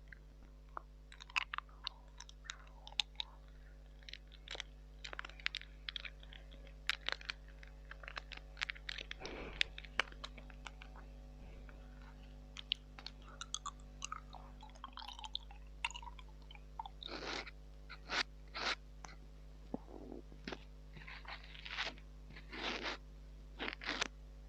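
Close-miked ASMR mouth sounds into a mini microphone: irregular wet clicks, tongue taps and smacks like 'sk', 'tk' and 'chucko', with chewing-like crunches. They are sparse at first and come in longer clusters in the second half.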